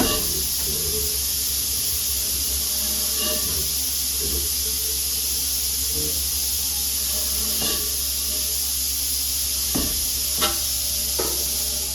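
Steady, loud hiss of compressed air rushing through the Chambersburg power hammer as it is cycled, with a few faint knocks and clicks.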